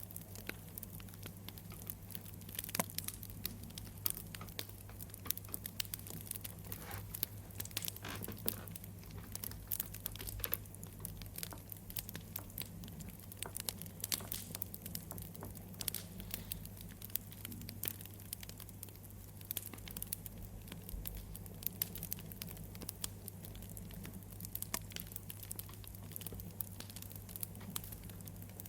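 Wood fire crackling, with frequent irregular sharp pops and snaps over a steady low hum.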